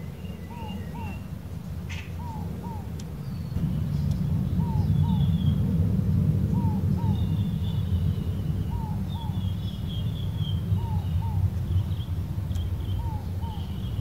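Inca dove in the background repeating its two-note 'no-hope' coo about every two seconds, with small birds chirping higher up. Under it runs a steady low rumble, the loudest sound, which grows louder a little after three and a half seconds.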